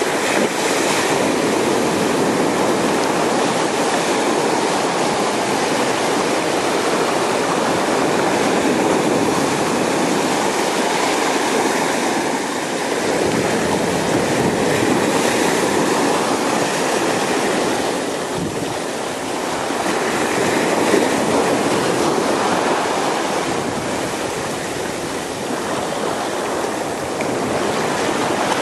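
Sea waves washing in over dark rocks and running back as foaming surf: a continuous rushing wash that swells and eases a little every few seconds.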